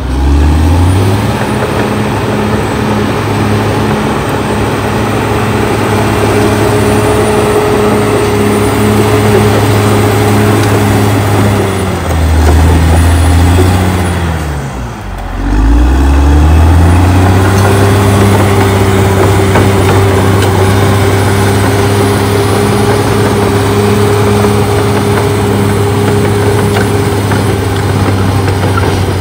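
Caterpillar D6R XL crawler dozer's diesel engine running hard as it clears brush, a steady drone. The pitch sags and climbs back up at the start, again about twelve seconds in, and most deeply about halfway through.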